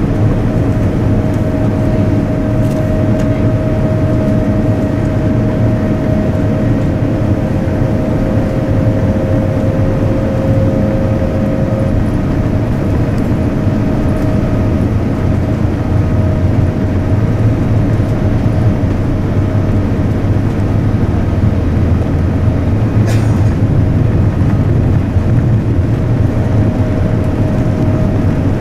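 Steady cabin rumble inside a Boeing 787-9 rolling along the ground, with its engines at low taxi power, and a steady hum tone above the rumble. A faint second tone drops out about twelve seconds in, and there is a single light click late on.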